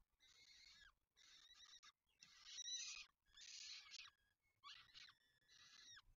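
Peregrine falcon chicks food-begging while an adult feeds them: about six drawn-out calls, each just under a second, one after another with short gaps.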